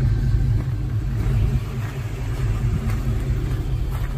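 Pickup truck's engine idling with a steady low rumble, kept running to hold the charging voltage between subwoofer tests.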